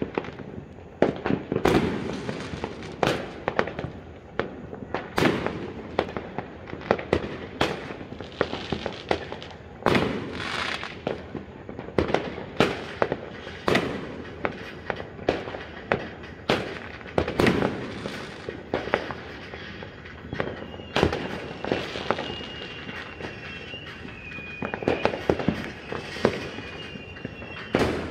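New Year fireworks exploding: irregular sharp bangs, roughly one every second or so, with crackling between them. A thin high whistle slides slowly downward for several seconds about two-thirds of the way through.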